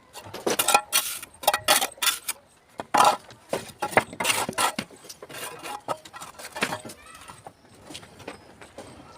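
Irregular sharp clinks and knocks of broken red brick being struck and shifted with metal tools, busier in the first half and sparser toward the end.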